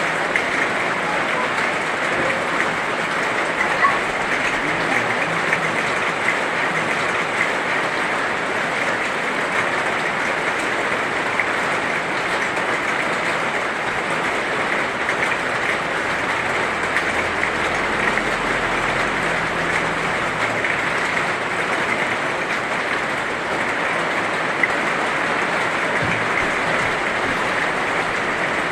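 Heavy rain falling steadily, a dense even hiss of drops without a break, with a faint low rumble for a few seconds past the middle.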